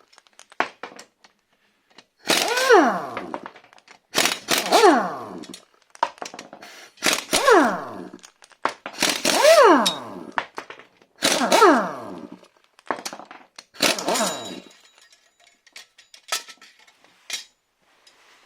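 Pneumatic impact wrench undoing the bolts of a cracked automatic-transmission drive plate on a Subaru crankshaft: about six bursts of hammering about two seconds apart, each with a whine that falls in pitch as the tool winds down.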